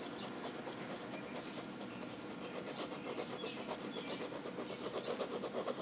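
Pen scratching on sketchpad paper in quick, repeated hatching strokes, getting louder toward the end.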